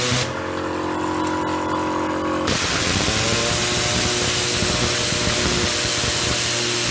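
Compressed air hissing hard from an air-powered cleaning gun. It stops for about two seconds near the start and then resumes. Under it the electric mini air compressor runs with a steady hum.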